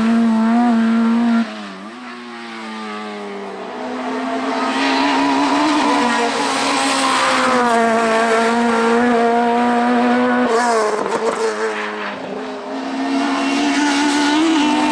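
Race car engine at high revs, climbing and dropping in pitch through gear changes. The revs fall sharply when the throttle is lifted about a second and a half in, then build again. A second lift near ten and a half seconds brings a short run of crackles before the engine pulls hard again.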